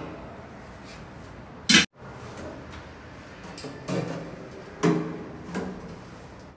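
Metal pots and lids clanking as they are handled on a gas stove: one sharp clang a little under two seconds in, then three softer knocks near the end, over a steady background hiss.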